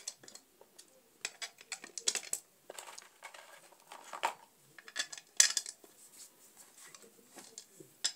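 Scattered small clicks and metallic taps from hands fitting a horn tweeter's back cover and screws onto the driver body, irregular, with a louder clack about five seconds in.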